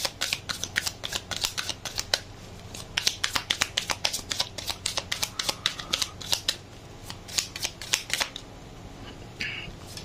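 Tarot cards being shuffled by hand: a rapid run of crisp clicks and flicks as the deck is worked between two hands, dying down about eight seconds in.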